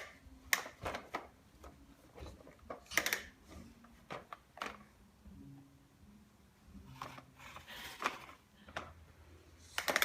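Irregular knocks, clicks and rattles as a small child pushes and handles a vacuum cleaner, with no vacuum motor running.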